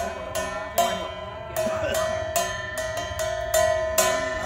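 A metal bell struck over and over, about two to three strikes a second at an uneven pace, each strike ringing on at the same pitch. Voices murmur underneath.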